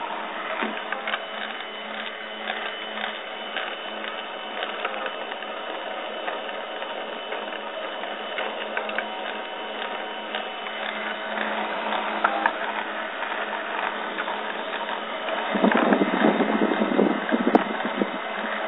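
Cyclone PCB Factory CNC mill at work, its spindle running an engraving bit through MDF: a continuous mechanical whir with many small clicks and rattles. The noise grows louder for a couple of seconds near the end.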